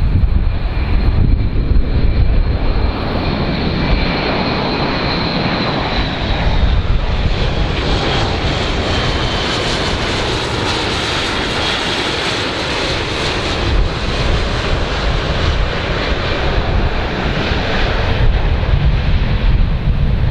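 Large aircraft's engines running loud, a dense roar with a high whine that sinks slightly in pitch; the hiss swells through the middle and then eases, as the aircraft passes.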